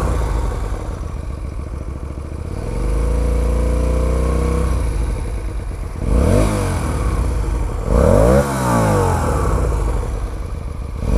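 Hyosung GT125's two-cylinder 125 cc engine, breathing through a Taconi aftermarket silencer with its dB killer removed, revved on the stand: a held rev about three seconds in, then quick throttle blips about six and eight seconds in. It sounds gutsy.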